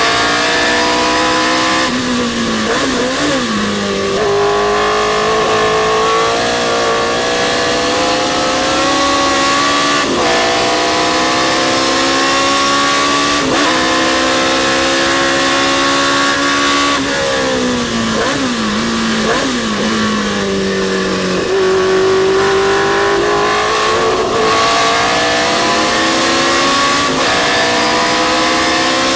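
Historic sports racing car's engine at race pace: revs climb again and again, broken by quick upshifts, and drop twice, a few seconds in and again around the middle, as it brakes and blips down through the gears for corners.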